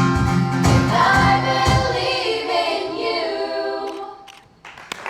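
A group of voices singing over a pulsing bass line, then holding a final chord that fades out about four and a half seconds in. A few sharp clicks follow, and applause breaks out at the very end.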